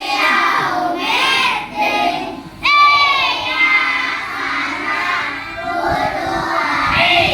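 Children singing together, several voices at once, with a loud high voice breaking in suddenly a little under three seconds in.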